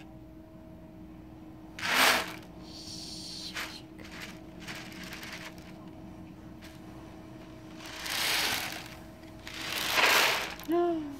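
Beads rolling inside a toy ocean drum as it is tilted: a swishing rattle that comes in several separate sweeps, a loud one about two seconds in and another near the end, with fainter ones between.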